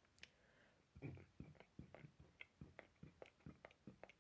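Near silence, with faint quick clicks about five a second starting about a second in.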